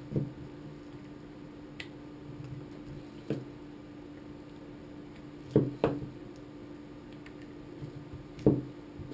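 Main-lead plugs of lithium polymer (LiPo) battery packs being pushed one by one into a parallel charging board: a series of about six sharp clicks and knocks, the loudest a pair just past halfway and one near the end.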